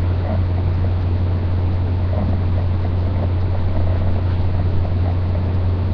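A steady low hum with faint hiss behind it, unchanging throughout.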